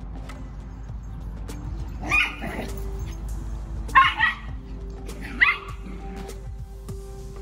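A dog barking in short yips, four times, two of them back to back about four seconds in, over quiet background music with held notes.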